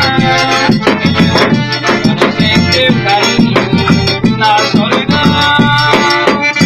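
Accordion music with a steady drum and percussion beat, the accordion carrying the melody.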